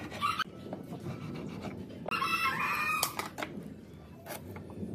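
A rooster crows once, about two seconds in, for about a second. Short taps and scrapes of steel marking tools and a pencil on a pine board come before and after it.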